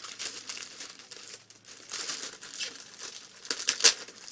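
Packaging crinkling and rustling as a slim Bluetooth keyboard is unwrapped and lifted out of its box, in irregular scrunches that are loudest near the end.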